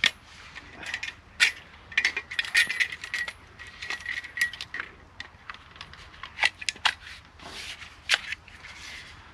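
Irregular metallic clicks and clinks from handling an Agawa Boreal 21 folding bow saw, its metal frame and blade knocking together. For a couple of seconds near the start, a light metallic ringing hangs on after the clicks.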